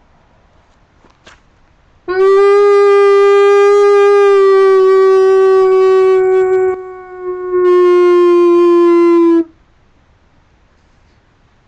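A person howling like a wolf close to the microphone: one long, loud, steady howl of about seven seconds that sags briefly partway through, then carries on and tails off slightly lower in pitch.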